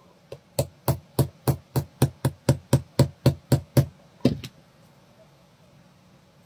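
Quick, evenly spaced knocks, about fifteen at some four a second, as a link pin in a metal watch bracelet is hammered out with the closed blades of a pair of scissors. The knocking stops a little past four seconds in.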